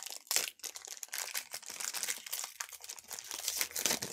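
Foil wrapper of a trading-card pack crinkling and crackling as it is pulled open by hand.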